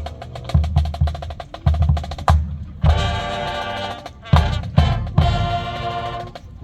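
Marching band drumline playing rapid snare strokes over heavy bass drum hits. The full band then comes in on two long held chords, one about three seconds in and another near the end, each opened by a loud accented hit.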